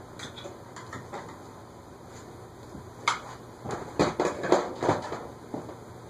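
J&D Manufacturing CF60 agricultural ceiling fan running with a low steady hum. About three seconds in comes a flurry of clicks, knocks and clatter from hard objects being handled, lasting about two seconds.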